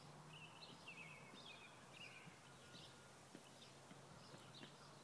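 Near silence: faint bird chirps over a low, steady hum.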